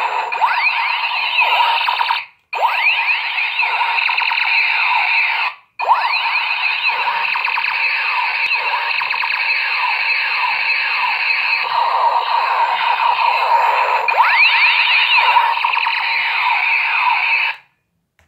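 Battery-powered light-up toy space gun playing its electronic firing sound effect: a loud, continuous wail of overlapping, rapidly sweeping laser tones. It cuts out briefly twice and stops shortly before the end.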